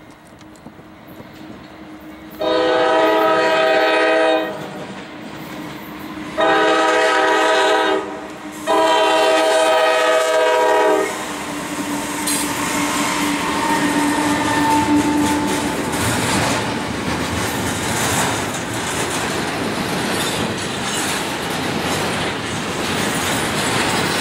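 Freight locomotive air horn sounding three long blasts, then the train running past with a steady rumble and wheels clacking over the rail joints.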